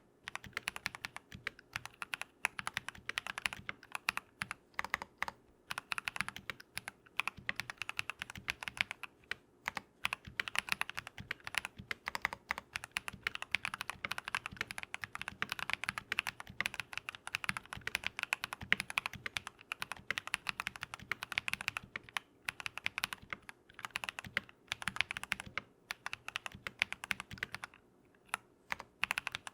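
Continuous typing on a Keychron V1 mechanical keyboard with lubed Drop + Invyr Holy Panda tactile switches: fast runs of keystrokes with brief pauses between bursts.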